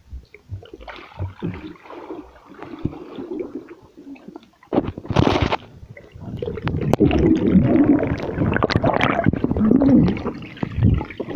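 Swimmers' movement heard through a microphone under the water of a swimming pool: muffled gurgling, bubbling and knocks. A sudden hissing rush of bubbles comes about five seconds in, then a longer stretch of dense churning bubbles and thumps.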